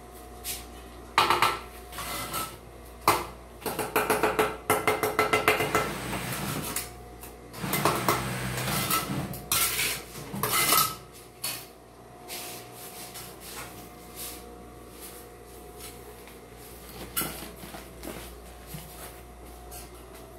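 Steel mason's trowel clinking, tapping and scraping against hollow ceramic bricks and wet mortar while bricks are laid. A quick run of taps comes about four seconds in, then a longer scraping stretch, then only a few scattered clicks.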